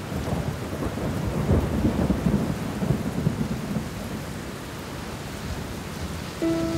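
Rain falling steadily with low rolling thunder, heaviest in the first few seconds, as a background soundtrack. A soft melody comes in near the end.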